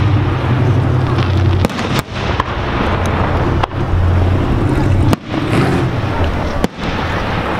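Aerial firework shells bursting, several sharp bangs spread over a few seconds, over a steady low rumble.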